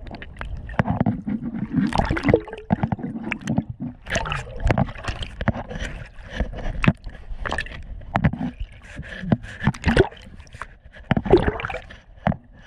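Underwater gurgling of air bubbles and water churned by a swimmer's arm movements, with many irregular knocks and splashes.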